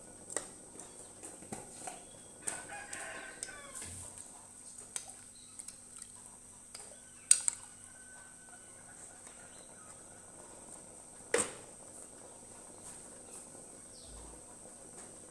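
A rooster crows once, briefly, a few seconds in. Later a metal spoon stirring the pot knocks sharply against its side twice.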